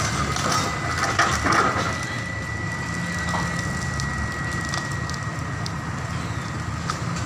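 A hydraulic excavator's engine runs steadily while branches and leaves crackle as its bucket pushes into a large tree. There are a few sharper cracks about a second in, and a thin steady whine over the first few seconds.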